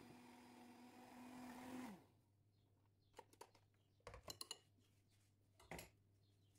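Electric mixer running steadily, then switched off about two seconds in, its motor whine dropping in pitch as it winds down. A few sharp clicks and taps follow.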